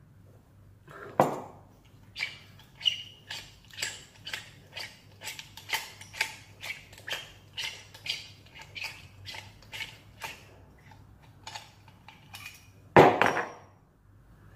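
A glass set down on a table with a knock, then a run of light clinks and clicks, about two a second, as small hard faucet parts are handled and knocked together in the hands. A louder knock comes near the end.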